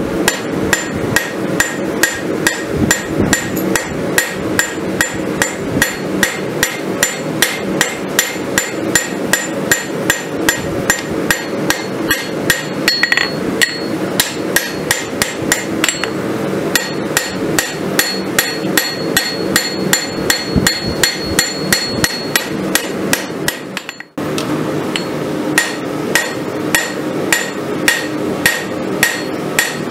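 Hand hammer striking red-hot steel on an anvil in a steady rhythm, about two blows a second, each with a bright metallic ring: a rasp blank being hot-forged into a kukri blade. The hammering breaks off briefly about three-quarters of the way through, then picks up again.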